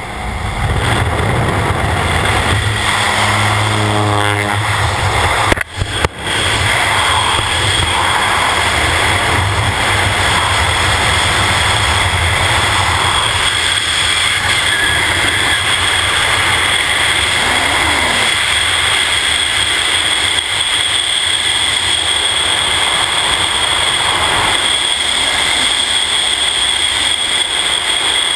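Wind and engine noise at the open door of a propeller jump plane in flight; about six seconds in the sound drops out briefly, then becomes the steady rush of wind over a helmet camera in skydiving freefall.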